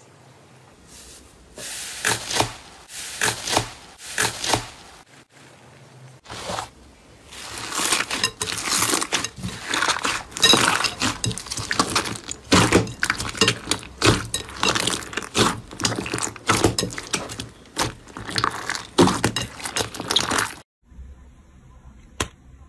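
Hands squeezing and kneading slime in a bowl: wet clicks, pops and crackles of trapped air, a few separate ones at first, then a dense continuous crackle that stops suddenly near the end.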